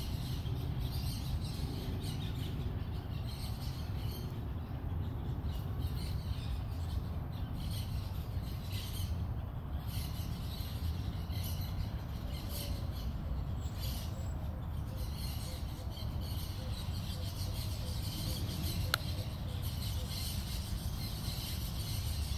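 Outdoor ambience: a steady low rumble with faint bird chirps, and a single sharp click late on.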